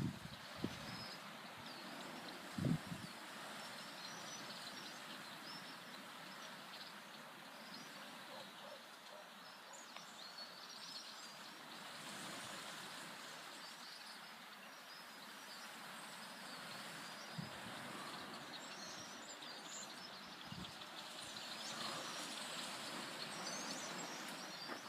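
Steady outdoor background noise with faint, scattered bird chirps, and one low thump about three seconds in.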